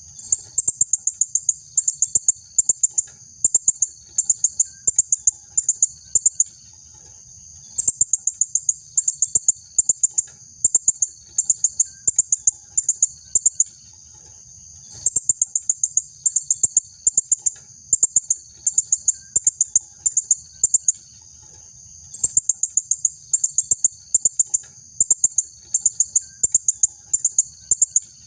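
Female blue-crowned hanging parrot calling: clusters of short, shrill, high-pitched notes fired in quick succession, pausing briefly every several seconds.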